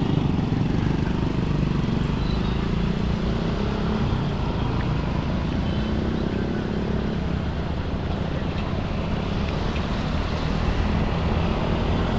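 Automatic scooter's engine running under the rider as it moves off and rides through traffic, its note rising and falling slightly, mixed with wind and road noise.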